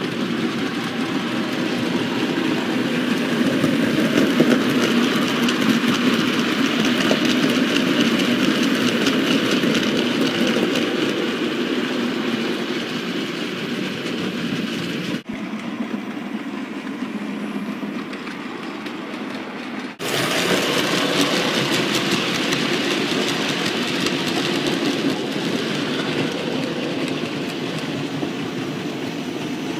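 OO-gauge model steam locomotive hauling a freight train of model wagons: the small electric motor running and the wheels rolling along the track in a steady rumble. For about five seconds past the halfway point the sound turns duller.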